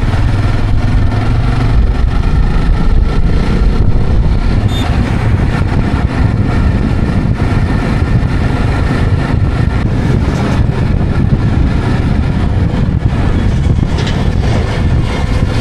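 Motorcycle running on the move, a steady deep rumble without pause.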